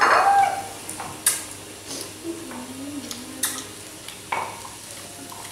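Cooked sea snail shells and utensils clinking and scraping against a tray and plates as people pick at them, with a few sharp clicks spread through and a brief voice at the start.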